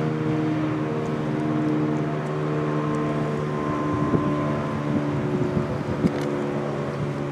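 Federal Signal RSH-10 outdoor warning siren sounding a steady tone at a held pitch during its activation. A few brief knocks come about four and six seconds in.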